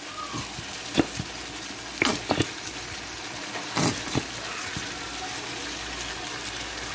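Chicken and vegetables simmering and sizzling in a frying pan, a steady hiss, with a few sharp clicks of a utensil against the pan about one, two, and four seconds in.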